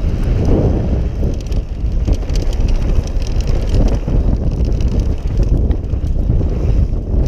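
Yeti SB6 mountain bike rolling fast down a dirt trail: steady low rumble of wind buffeting the microphone and knobby tyres on dirt, with frequent small clicks and rattles from the bike over bumps.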